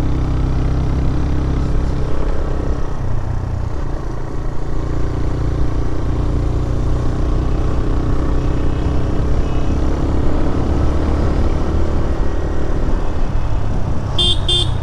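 TVS Raider 125 motorcycle's single-cylinder engine running under way, its pitch shifting a few times with the throttle. Two short horn beeps near the end.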